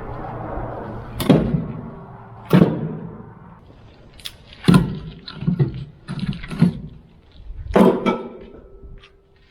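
Heavy wooden thuds as freshly cut cedar firewood rounds are tossed down, seven in all: two about a second apart, then a quicker run of four, then a last one.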